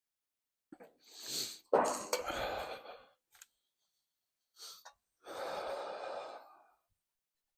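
A man sneezes once: a rising intake of breath, then a sudden loud burst. A few seconds later comes a long breathy exhale.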